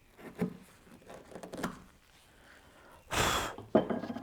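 Wooden workpieces being handled and knocked on a workbench: a few dull thunks, then a short rush of noise about three seconds in, followed by a sharp knock.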